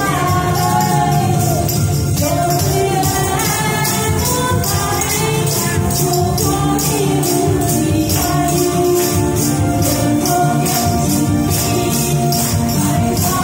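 A woman singing a song into a microphone over accompanying music, while several people shake and strike tambourines along with the beat.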